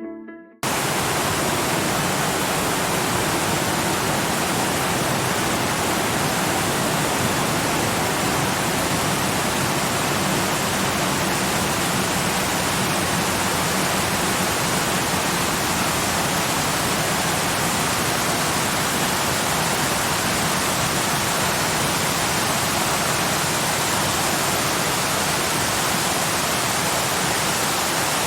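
Waterfall: a steady, even rush of falling water that starts abruptly under a second in and holds unchanged.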